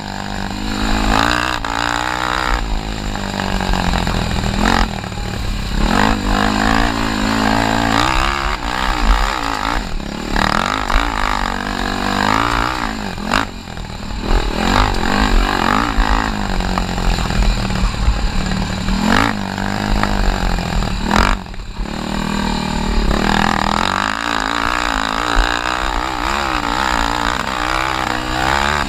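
Honda TRX300EX ATV's single-cylinder four-stroke engine revving up and easing off over and over as it is raced off-road, its pitch rising and falling. The engine note drops off sharply twice, about halfway through and again about three-quarters through.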